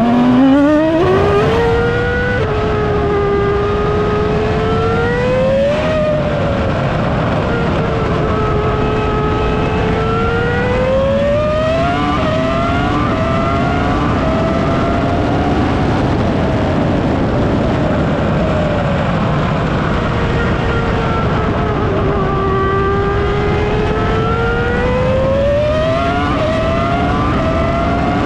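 The 3.0-litre BMW V10 of a 2003 Williams FW25 Formula One car heard onboard at speed. Its pitch climbs sharply in the first two seconds, then repeatedly sags and climbs again as the car slows for corners and accelerates out, with a few quick steps in pitch from gear changes.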